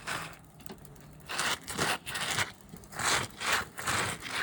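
Gloved hand wiping across asphalt shingles in repeated gritty strokes, about two a second after a quieter first second, knocking loose granules off into the gutter: degranulation of shingles damaged by the repair.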